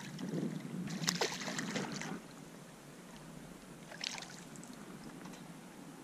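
A hooked walleye splashing and thrashing at the water's surface as it is reeled in to the bank, for about two seconds. After that it is quieter, with one more short splash about four seconds in.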